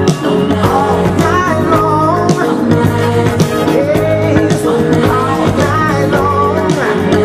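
Music with a singing voice over a steady beat.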